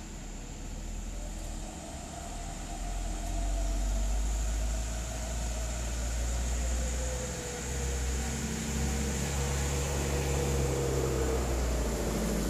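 Diesel engines of heavy sugarcane trucks approaching, a deep engine rumble growing louder, with a whining note that slowly drifts in pitch.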